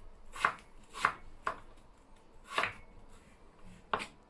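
Kitchen knife slicing through a peeled raw potato onto a wooden cutting board: five cuts at uneven intervals, each ending in a tap of the blade on the board.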